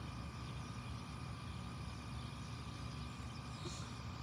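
Steady low background rumble with a faint high-pitched whine that stops near the end; no shot or other distinct sound.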